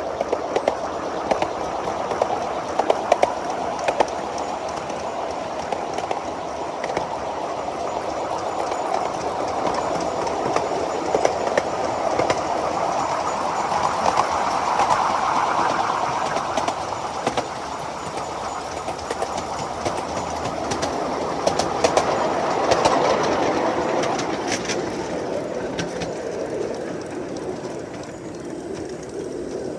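Miniature railway riding cars rolling along the track behind a small steam locomotive: a steady rumble of wheels on rail with frequent sharp clicks over the rail joints, swelling louder twice along the way.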